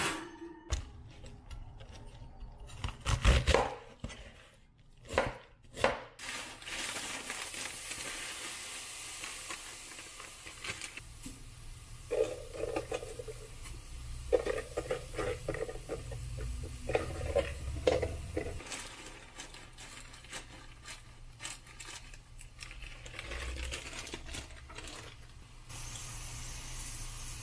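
Kitchen handling: a glass baking dish knocks against the oven rack and the oven door shuts with a few loud clunks. Then a frying pan on the burner hisses steadily, and shredded napa cabbage rattles and clatters into it from a plastic salad spinner.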